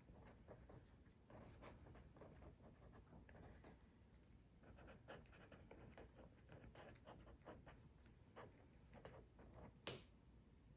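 Faint scratching of writing on paper in many short strokes, with a slightly louder tap near the end.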